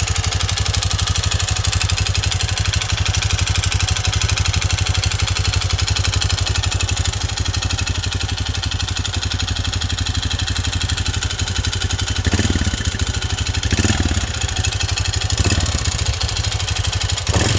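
Honda CT125 Trail 125's single-cylinder engine, fitted with a Takegawa 143cc big-bore piston and cylinder, idling with a fast, even clatter coming from deep in the engine. The engine rises briefly four times near the end. The owner asks whether the noise is piston slap.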